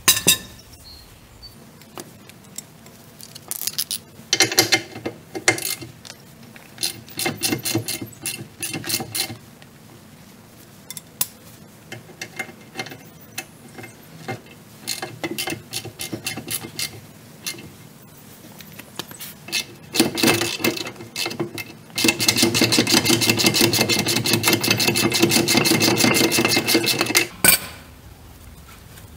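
Socket ratchet clicking as it backs off the 16 mm lower shock bolt on a 2001 VW Golf mk4's rear suspension. Short bursts of ratcheting come through the first half. Near the end there is a fast, steady run of clicks lasting about five seconds as the loosened nut spins off.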